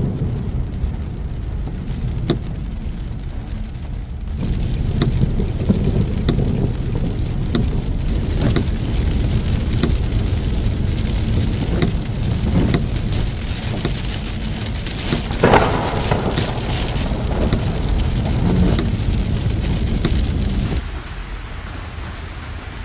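Heavy rain falling hard, with many sharp individual drop hits over a steady low rumble. There is a brief louder burst about 15 seconds in, and the sound drops somewhat about 21 seconds in.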